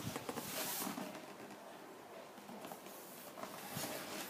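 Cardboard shoebox handled by hand: scraping, rubbing and light knocks as it is slid and turned, loudest about half a second in and again near the end.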